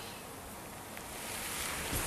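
Steady low hiss of room tone with no distinct sounds, growing slightly louder toward the end.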